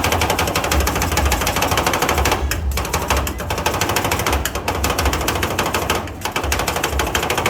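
Metal spatulas chopping and tapping fast on the cold plate of a rolled-ice-cream stall, a rapid run of sharp metallic clicks that breaks off briefly about two and a half seconds in and again near six seconds.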